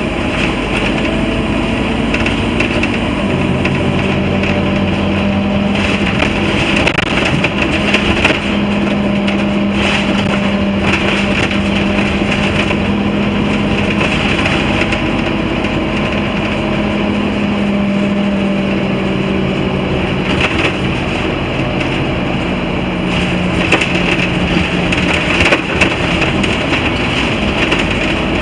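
Scania N230UD Omnicity double-decker bus heard from inside the passenger saloon on the move: its diesel engine hums steadily, the note shifting in pitch a few times as the bus changes speed, over road noise and the rattle of interior panels and fittings.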